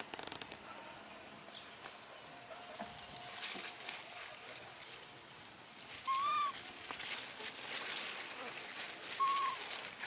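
Baby macaques scrambling through leafy ground cover, leaves rustling, with two short, high arched coo calls: one about six seconds in and another near the end.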